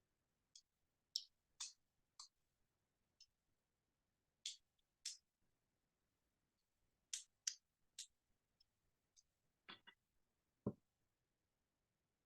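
Scattered small plastic clicks of Snap Circuits pieces being handled and snapped into place, about fifteen at irregular intervals, with a duller knock near the end.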